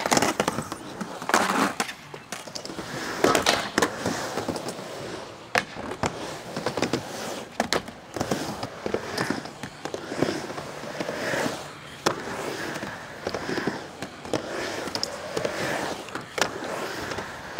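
Skateboard riding back and forth on a mini ramp: a steady rumble of the wheels rolling on the ramp surface, broken every second or two by sharp clacks as the board's trucks and tail strike the ramp and coping.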